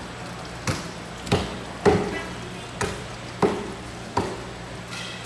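Large knife chopping through a mahi mahi fillet onto a plastic cutting board: six sharp knocks at uneven gaps of about half a second to a second.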